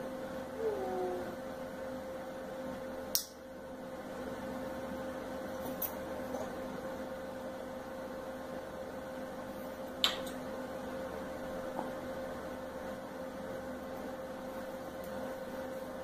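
Steady electrical hum over faint room noise, broken by a few sharp clicks, at about 3, 6 and 10 seconds in.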